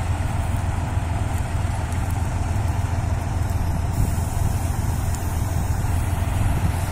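Kirovets K-701 tractor diesel engines running steadily, a deep, even engine hum.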